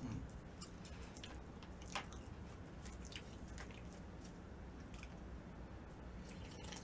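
Quiet eating sounds: soft chewing and wet mouth noises with scattered small clicks, one sharper click about two seconds in, then a sip of udon broth from the cup near the end.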